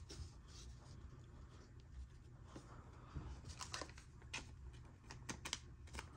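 Faint clicks and light rustling of cardboard trading cards being handled and shuffled by hand, more of them in the second half, over a low steady hum.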